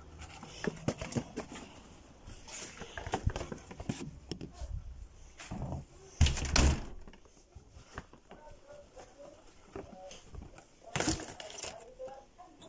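Groceries and the phone being handled: scattered knocks, taps and rustles, with a louder bump about six seconds in.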